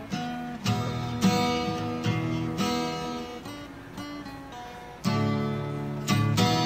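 Background music: strummed acoustic guitar chords, each struck and left to ring.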